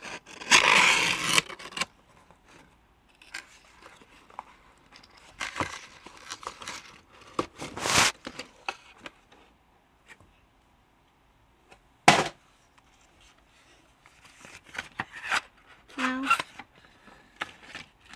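A cardboard puzzle box being opened by hand and its packaging handled: irregular scrapes, rustles and sliding of cardboard and paper, with one sharp knock about twelve seconds in.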